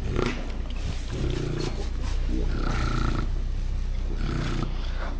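A goat bleating loudly three times, each call about half a second long.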